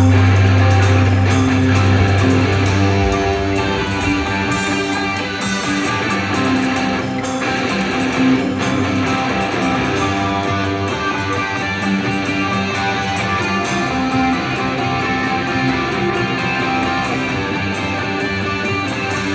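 A rock band's guitars playing live through a large arena sound system, with strummed chords and notes. A deep held low note cuts off about three seconds in.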